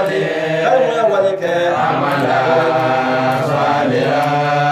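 A man chanting from a written text in long melodic phrases, holding drawn-out notes in the second half.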